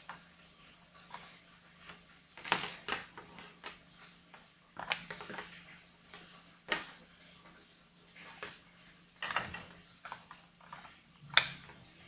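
Handling noise of a plastic network cable tester and Ethernet cables on a desk: scattered sharp clicks and clatters as the cables and RJ45 plugs are moved and pushed into the tester, the loudest click near the end. A faint steady hum lies underneath.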